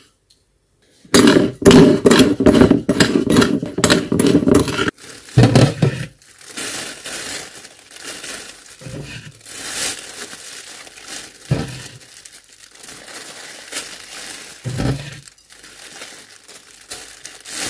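A spoon scraping and clinking against a glass bowl for a few seconds, mixing dry salt and sugar, then a thin plastic bag crinkling as salted fish pieces are handled in it, with a few soft thumps.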